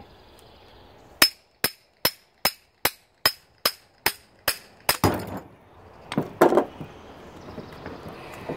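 Hammer blows on metal, about ten sharp ringing strikes at a steady pace of roughly two or three a second, pounding the bearing out of an electric lawnmower motor. They are followed by a couple of louder clattering knocks as the part works loose.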